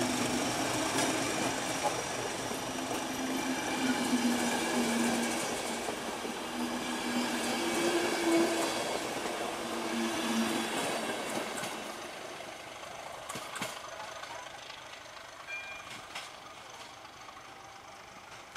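Passenger coaches of a train rolling past close by, wheels rumbling and clicking on the track. The sound fades steadily over the last several seconds as the end of the train moves away.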